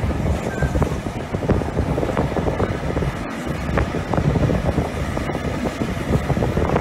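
Passenger train running along the track, heard from an open carriage window: wind buffeting the microphone over a steady rumble and rattle of the moving coach.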